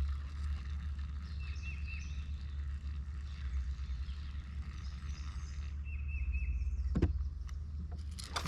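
Creekside ambience: a steady low rumble, with a bird chirping in short repeated notes twice and a sharp knock about seven seconds in.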